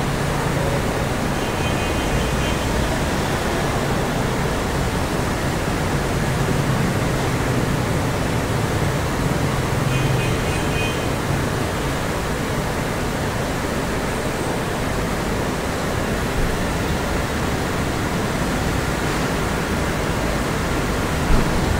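Steady, even rushing ambience of a shopping mall's interior with no distinct events, broken by two brief faint high beeps about two seconds in and again about ten seconds in, and a short knock just before the end.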